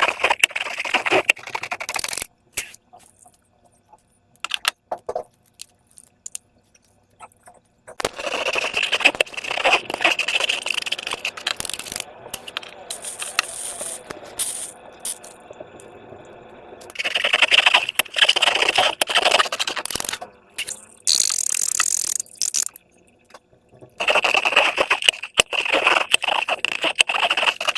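Slime-making materials being handled: bursts of scraping, rattling and crackling, broken by a few quiet pauses.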